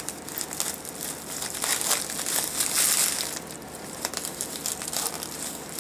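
Plastic bubble mailer crinkling as it is slit open with a Mercator folding knife and pulled apart by hand, in uneven swells with small clicks.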